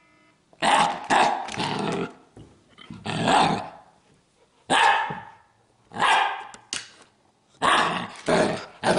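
Siberian husky puppy giving a string of about seven loud bark-and-grumble vocalizations, the husky's typical back-talk, each about half a second to a second and a half long with short pauses between. It is demanding play, dropping into play bows between calls.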